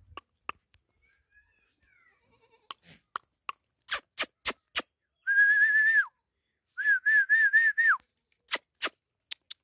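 A person whistling to call a dog: a run of sharp clicks, then a high whistle held steady that falls off at the end, then a second whistle warbling up and down that also falls off, and two more clicks near the end.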